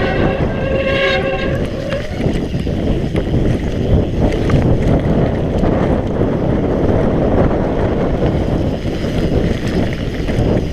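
Mountain bike descending a wet, rough trail. In the first couple of seconds, wet disc brakes give a pitched honk. After that comes steady wind and trail rumble.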